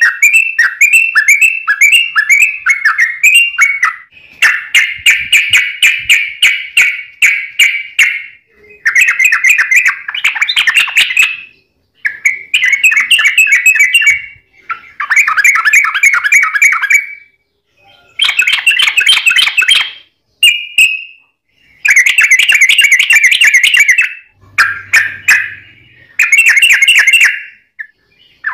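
Yellow-vented bulbul (trucuk) singing fast, dense chattering phrases in repeated bursts of a few seconds each, with short breaks between them.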